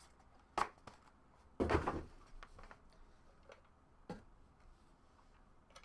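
Handling noise from a trading-card box being opened and its contents sorted: a few light clicks and taps, with one louder short rustle and knock about two seconds in.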